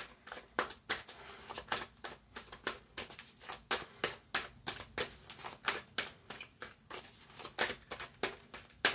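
A deck of tarot cards being shuffled by hand: a run of crisp, uneven card clicks, a few a second, with a louder snap near the end.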